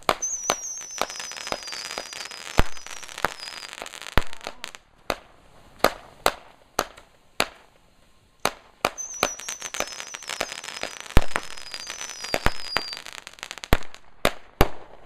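Backyard fireworks going off: a string of sharp bangs with crackling, and high whistles that slowly fall in pitch. This happens in two rounds, one at the start and another from about nine seconds in, with scattered single bangs between them.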